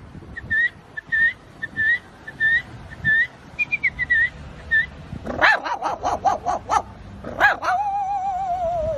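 A man imitating animal calls with his voice: a string of short high chirps, then a quick run of sharp yelps, then a long wavering whine that slowly falls in pitch.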